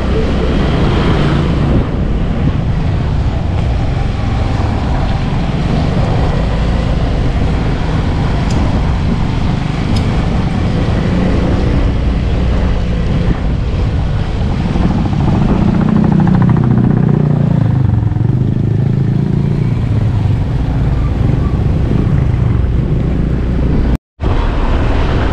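Motorcycle engine running steadily under way, with road noise. The sound drops out completely for a split second near the end.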